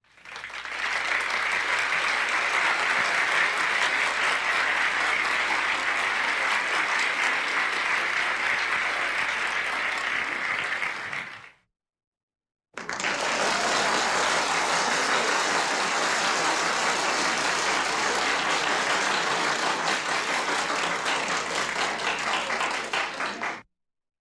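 Medium-sized indoor crowd applauding: two rounds of steady clapping, each about eleven seconds long and fading at its end, with about a second of silence between them.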